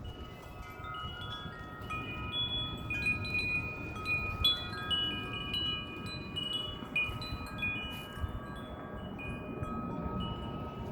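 Several wind chimes ringing in gusty wind, many notes sounding and overlapping, busiest in the middle, with wind rumbling on the microphone underneath.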